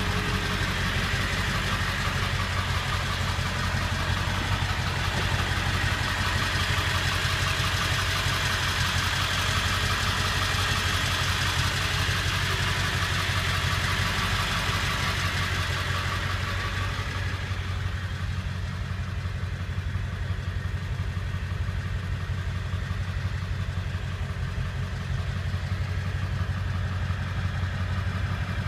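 Ford 7.3-litre Power Stroke V8 turbo-diesel idling steadily with a low, even rumble. About two-thirds of the way through, its higher-pitched part drops away and the low rumble carries on.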